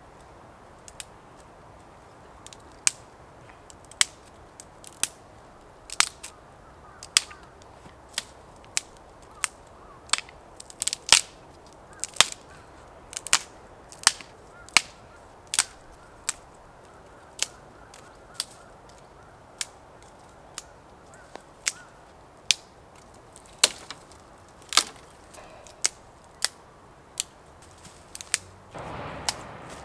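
A long series of sharp knocks, roughly one a second and somewhat uneven in strength, over a faint steady hiss. A short rustling burst comes near the end.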